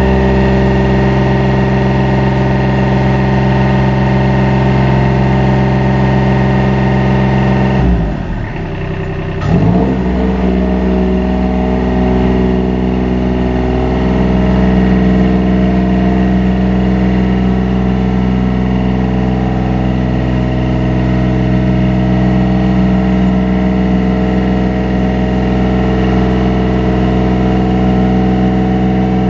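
Combustion engine of an Upright LX50 4x4 rough-terrain scissor lift running steadily while the platform is raised. About eight seconds in, its pitch drops sharply and climbs back about a second and a half later.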